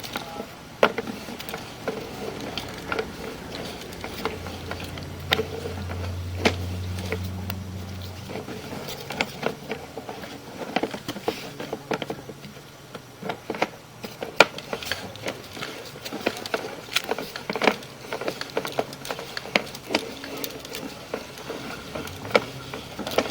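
Sewer inspection camera's push cable being pulled back out of the line and onto its reel: irregular clicks and rattles, with a low hum for a few seconds near the middle.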